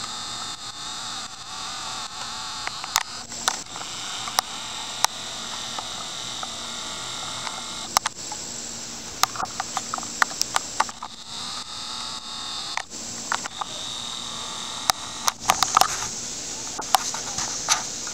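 Handling noise from a handheld camera: many sharp clicks and knocks, thickest about halfway through and again near the end, over a steady hiss with faint high, wavering tones.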